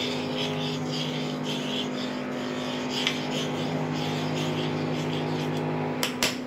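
Induction cooktop humming steadily under a stainless steel saucepan of curdled milk, while a spoon scrapes lightly around the pan. The lower part of the hum cuts out about six seconds in, followed by a couple of sharp clicks.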